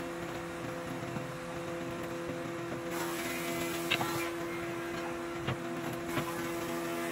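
A few light taps of wooden straightedges and a ruler being set down and shifted on a pallet-wood board, over a steady hum.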